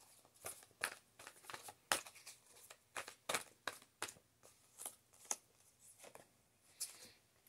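A deck of oracle cards being shuffled by hand: irregular soft card flicks and slaps, about two a second.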